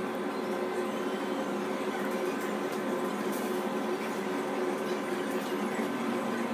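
Steady machine hum: an even noise with several held tones, unchanging throughout.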